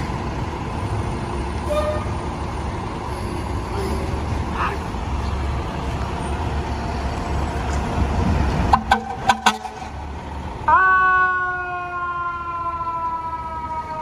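A fire engine's diesel engine rumbles as it pulls out. About nine seconds in there are four quick, sharp horn blasts. Near eleven seconds its siren starts, jumping up in pitch and then slowly falling.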